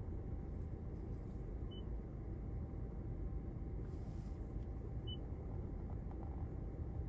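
Two short, high confirmation beeps from a Toyota RAV4 infotainment touchscreen as it is tapped, about two seconds and five seconds in. Under them runs a steady low rumble inside the car's cabin.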